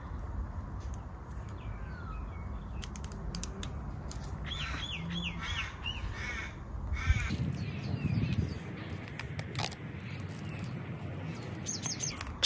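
Outdoor ambience with a bird calling: a quick run of about five short arching calls a little before the middle, then a few more scattered calls.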